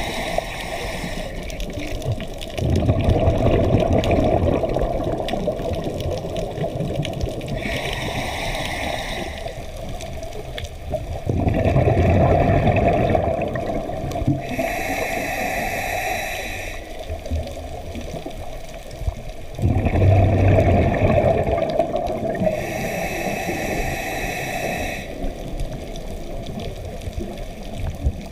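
A scuba diver breathing through a regulator underwater: hissing inhalations alternate with louder bursts of exhaled bubbles, about three breath cycles.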